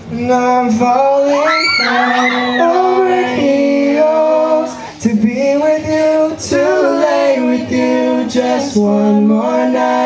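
Two male voices singing a song live, holding long notes with only a short break about five seconds in. A brief high squeal rises and falls over the singing about two seconds in.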